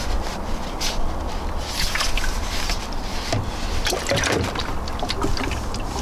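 Water sloshing and glugging in a plastic gallon jug as it is turned upside down and seated as the tank on a garment steamer's base, with clicks and knocks of plastic. The gurgling comes mostly three to four and a half seconds in, over a steady low rumble.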